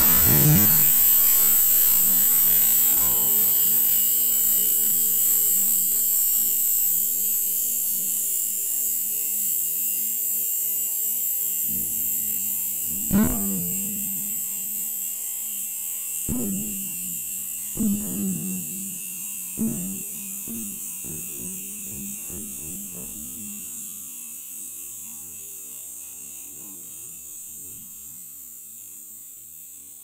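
Pressurized aerosol can rupturing inside a water-filled pressure test chamber: a loud hiss of escaping propellant that fades slowly, with a few dull knocks near the middle.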